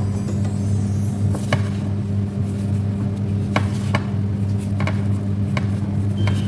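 A steady low hum under a few light clicks and taps as chicken pieces are dredged in flour on a plate and knock against the dish.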